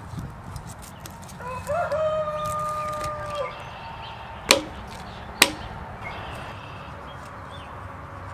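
A rooster crows once, a single drawn-out call of about two seconds. After it come two sharp knocks about a second apart, the loudest sounds, over a steady low rumble.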